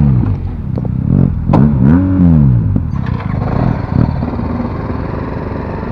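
Motorcycle engine revved up and back down twice, near the start and about two seconds in, then running steadily at a lower level.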